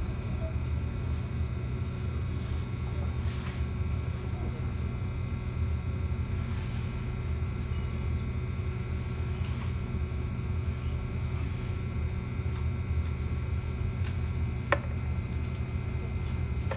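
Steady low rumble and hum heard inside the cabin of a JR 211-series electric train, with one sharp click about three-quarters of the way through.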